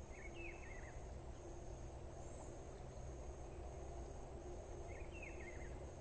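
Faint natural ambience: a steady high-pitched insect buzz, with a bird giving a short chirping call that falls in pitch twice, near the start and about five seconds in.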